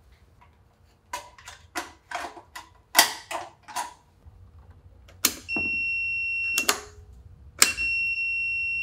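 Multimeter continuity tester beeping twice, each a steady high beep of about a second that starts and stops with a sharp click of the mushroom-head emergency-stop button being pressed and released. The beep shows the stop switch closing the circuit between the VFD's X5 safety-stop input and COM. Before that comes a quick run of light clicks and taps.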